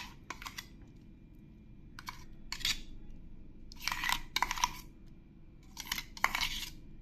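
Metal spoon scraping thick paste out of a stainless-steel mixer-grinder jar: short scraping strokes in pairs about every two seconds.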